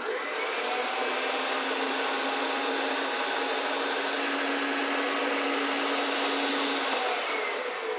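Stand mixer with a wire whisk running steadily, whipping a butter and condensed-milk cream with gelatin added. Near the end its pitch falls as it slows and stops.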